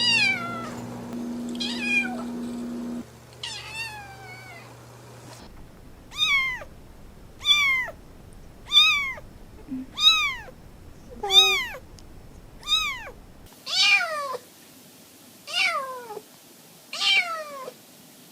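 Kittens meowing: about a dozen short, high-pitched meows in a row, each rising and falling in pitch, roughly one every second or so.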